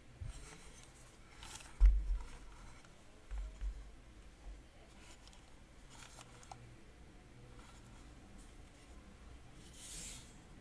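Quiet handling noise: light rubbing and scraping, with a dull low thump about two seconds in and softer thumps around three and a half seconds.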